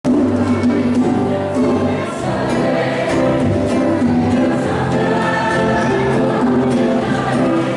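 A choir singing an Ambonese folk song in harmony with instrumental accompaniment, notes held and changing steadily over a low bass line.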